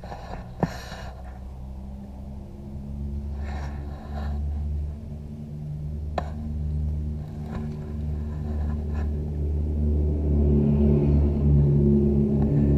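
Shibaura SX24 compact tractor's diesel engine idling with a steady low rumble that grows louder in the second half. Two sharp clicks, one near the start and one about halfway through.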